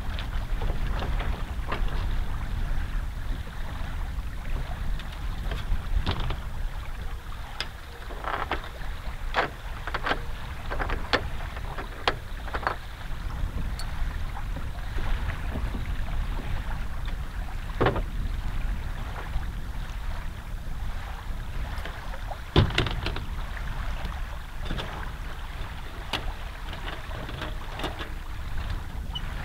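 Low wind rumble on the microphone, with scattered knocks and clicks throughout, the loudest a single sharp knock about three-quarters of the way through.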